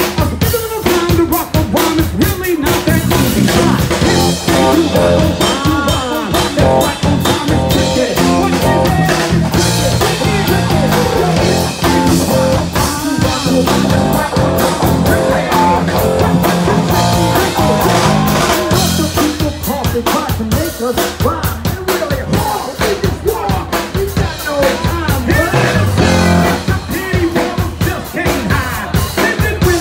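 Live band playing amplified music: drum kit and bass keep a steady driving beat under guitar, with a voice over the top.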